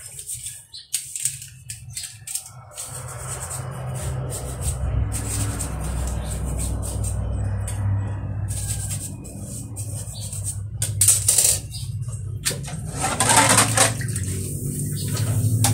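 Dishes being washed in a stainless-steel sink: a sponge scrubbing a metal pan, with scattered clinks of metal utensils against it and a louder burst of scrubbing or splashing near the end.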